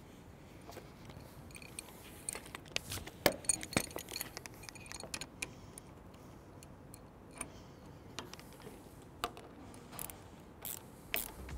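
Light metallic clicks and rattles of an adjustable wrench and a Phillips screwdriver working an M5 screw and lock nut through a steel soft-top bow bracket. The ticks come irregularly, thickest in the first half, with a few more near the end.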